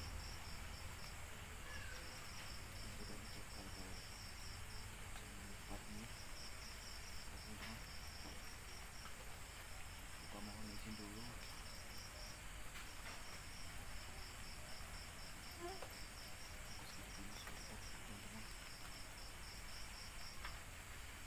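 Night insects chirping in a high, even, rapid pulse, about five chirps a second, with short breaks about a second in and around the middle, over a faint low hum and hiss.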